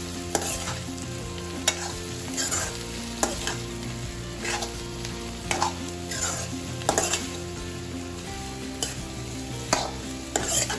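A steel spoon stirring spiced diced potatoes in a steel kadai, scraping and knocking against the pan every second or so, over the sizzle of the potatoes frying in a little oil.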